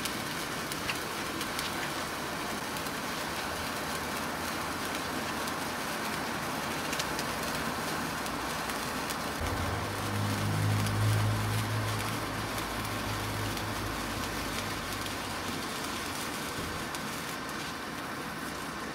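Sparkler burning with a steady fizzing hiss and faint crackle as it throws sparks. About halfway a low steady drone joins for several seconds, then fades.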